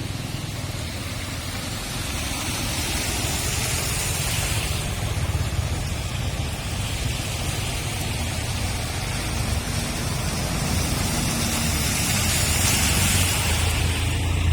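Street traffic on a wet road: a steady low engine rumble, with the hiss of tyres on wet pavement swelling twice as vehicles pass.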